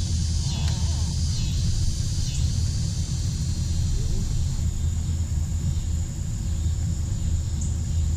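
Insects buzzing high-pitched in the trees, in a run of repeated pulses for the first couple of seconds and then a steady drone, over a steady low rumble.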